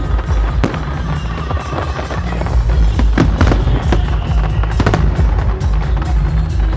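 Fireworks display bursting, with a string of sharp bangs and crackles over music from loudspeakers; the loudest bangs come about three seconds in and again just before five seconds.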